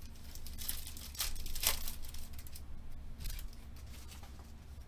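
Trading card pack wrapper torn open with a crinkling rip in the first couple of seconds, followed by a shorter rustle of the cards and wrapper a little later.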